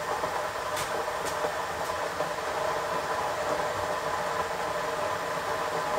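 Steady whirring hum of a kitchen appliance motor and rushing air, with a couple of light clicks about a second in.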